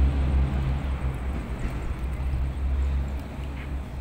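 Steady low engine rumble of road traffic, a heavy vehicle going by, easing off a little near the end.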